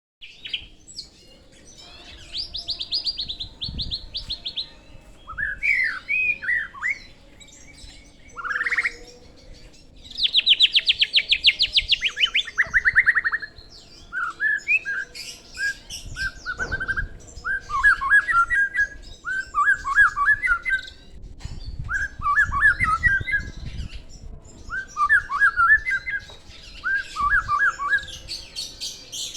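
A Bornean white-rumped shama (murai batu Kalimantan) singing a loud, varied song. It opens with fast rattling trills, then moves into a run of short, quick whistled phrases repeated with brief pauses.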